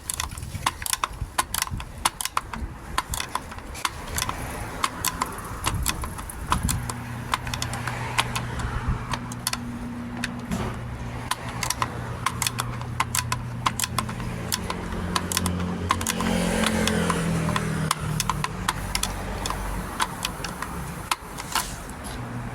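Metal parts and tools clicking and clattering during work on a BMW F02's parking brake. A steady low hum joins in about six seconds in and shifts in pitch near the end.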